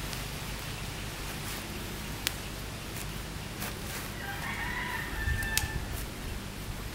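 A rooster crows once, a call of about a second and a half past the middle, over a steady background hiss, with a few sharp clicks.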